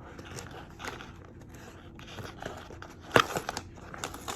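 Paper microwave popcorn bag being handled and pulled open, crinkling and crackling, with one louder, sharp crackle about three seconds in.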